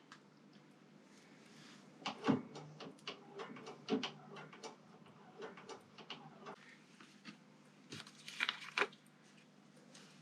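Scattered light clicks and knocks of small parts and tools being handled. A firmer knock comes about two seconds in and another about four seconds in, with a quick run of clicks near the end.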